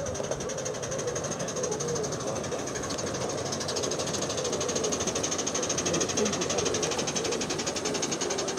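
Gauge 1 model train running along garden track with a rapid, even clicking rhythm, growing louder as it comes past.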